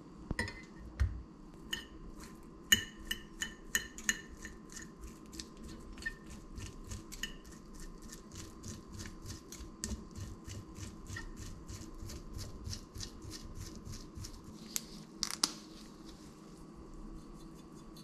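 Two metal forks clicking and scraping against a ceramic plate while boiled chicken breast is shredded, a quick run of clicks about four a second, with a couple of louder knocks near the end.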